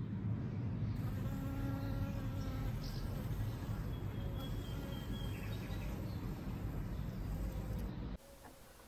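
A flying insect buzzing close by, its hum wavering in pitch as it comes and goes, over a steady low rumble. It cuts off suddenly about eight seconds in.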